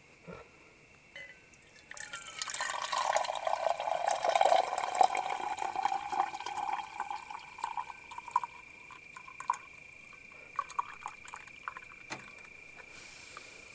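Coffee poured from a metal camp pot into an insulated tumbler: the pour starts about two seconds in as a steady stream, then thins to a trickle and scattered drips near the end. Crickets chirp steadily in the background.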